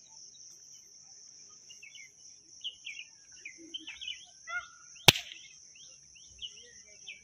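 A single sharp, loud pop about five seconds in: a leaf laid over a cupped hand is slapped from above and bursts. Birds chirp throughout over a steady, high insect buzz.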